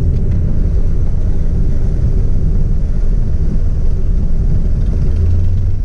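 Cirrus SR22's piston engine and propeller running steadily at taxi power, a continuous low drone that grows slightly stronger in its deepest note near the end.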